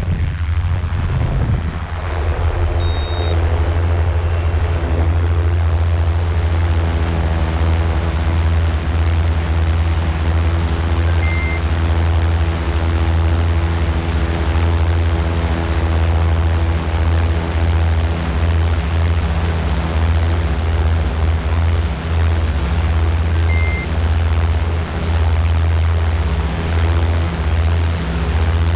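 Multirotor drone's propellers buzzing steadily in flight: a low hum with a stack of higher tones, the pitch wavering in the first couple of seconds.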